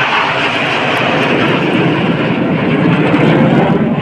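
Military jet aircraft flying past with a loud, steady roar that deepens in pitch as it passes.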